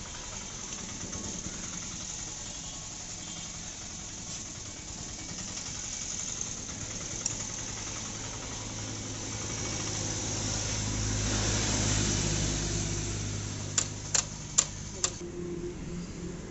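An engine running steadily in the background, swelling about two thirds of the way through and cutting out near the end, with four sharp clicks a little under half a second apart just before it stops.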